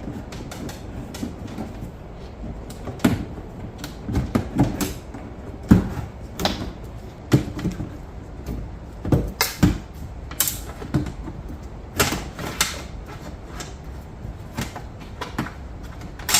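Irregular clicks, knocks and rattles of plastic and metal as a rear door lock actuator is worked loose and pulled out from inside a 2019 Chevy Silverado's rear door. A few knocks are sharper and louder than the rest.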